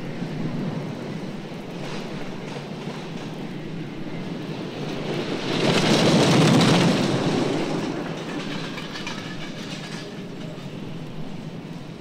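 A train passing by, growing louder to its peak about six seconds in and then fading away.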